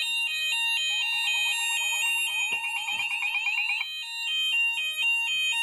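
Fire alarm sounders going off together after an optical smoke detector has triggered the panel: a sounder base on an alternating two-tone pattern, set to the Hochiki alternating tone. A second sounder joins with a fast sweeping tone for about three seconds.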